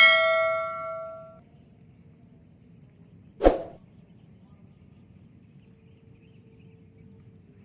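A small metal bell rings once and fades away over about a second and a half, then a single short, sharp noise comes a few seconds later.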